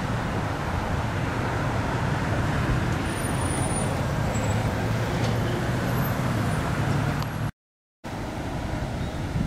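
Steady road traffic and the low rumble of car and pickup engines at a busy gas station. The sound cuts out for about half a second near the end, then returns much the same.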